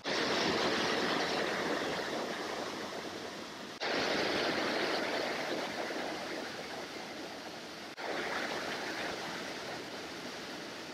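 Steady rush of a fast-flowing creek. The level drops and jumps back sharply about four seconds in and again about eight seconds in.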